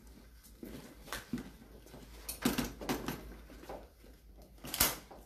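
A few scattered sharp clicks and rustles over quiet room tone, with a small cluster in the middle and the loudest click near the end.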